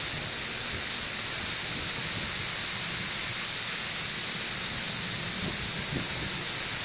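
Chorus of Brood XIV 17-year periodical cicadas, millions calling at once: a steady, unbroken high-pitched drone.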